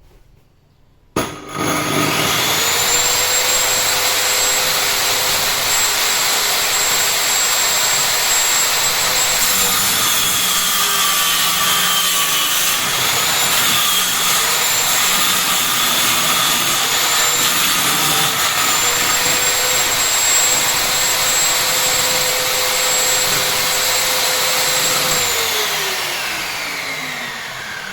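Electric woodworking power tool switched on and spinning up to a high, steady whine, its pitch dipping a few times midway as it takes load in the wood, then winding down slowly near the end after being switched off.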